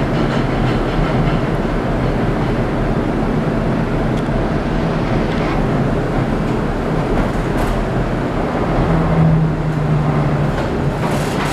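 Interior of a 1948 St. Louis PCC electric streetcar running along the track: a steady rumble of wheels on rail and car body. A low electric hum grows louder about three-quarters of the way through.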